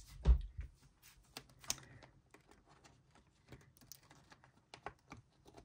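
Photocard binder and its plastic sleeve pages being handled: a dull thump just after the start, then scattered light clicks and taps.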